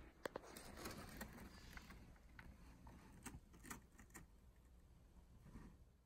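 Near silence: room tone with a few faint, scattered clicks in the first few seconds.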